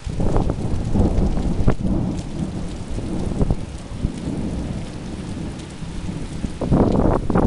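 Heavy rainstorm: rain pouring down steadily under a low, uneven rumble that swells about half a second in and again near the end.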